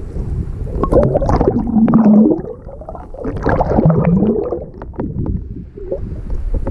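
Muffled underwater gurgling and rumbling of a shallow river over a pebble bed, picked up by an action camera held under the surface. It swells louder twice, with scattered clicks.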